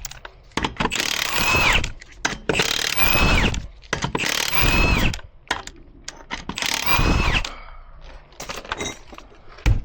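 Impact wrench with a 19 mm socket spinning off a wheel's lug nuts: four bursts of about a second each, the motor's whine rising and falling in each. Lighter metal clinks follow, and a knock near the end.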